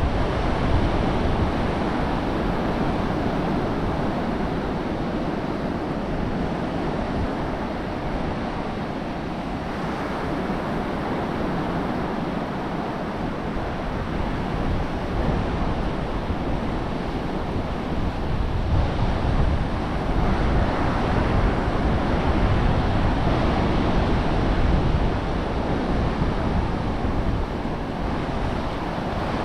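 Ocean surf washing onto the beach in a steady, continuous rush, with wind buffeting the microphone as a low rumble underneath.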